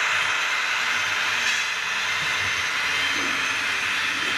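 HO-scale model trains running on the layout's track: a steady rushing whir of wheels on rails, with faint voices in the background near the end.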